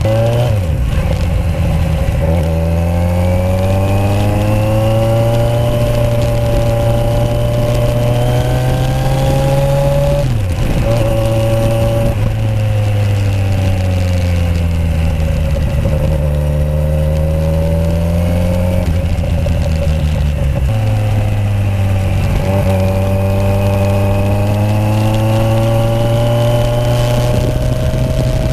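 Kawasaki Z1000 inline-four on aftermarket exhausts, riding on the road. The engine note climbs steadily in pitch under throttle, drops sharply a few times, and swings up and down again as it accelerates and slows.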